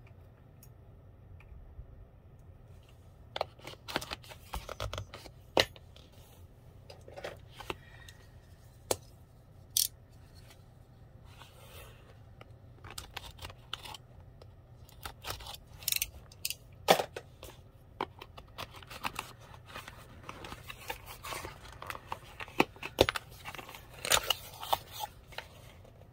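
A small cardboard gift box is handled, unsealed and opened by hand. The sound is a string of irregular clicks, crinkles and scrapes of card and tape, busier in the second half as the flaps are folded open.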